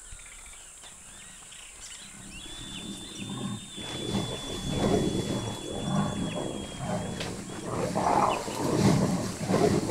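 Jaguars growling and snarling during mating. The growls start low about two seconds in and come in repeated, rising bouts, loudest near the end.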